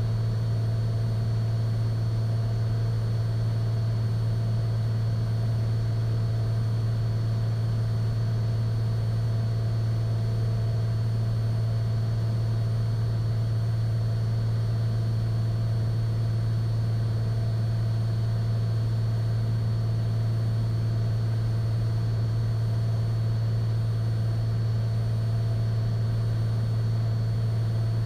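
Steady drone of a Cessna 182 Skylane's piston engine and propeller in cruise, heard inside the cabin, with no change in pitch or level.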